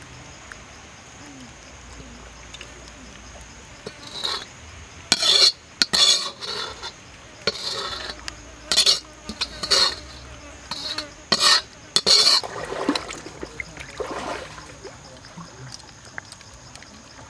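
A utensil scraping and clinking against a metal wok as sauce is scraped out of it: a run of about a dozen short, sharp scrapes over several seconds, starting about four seconds in.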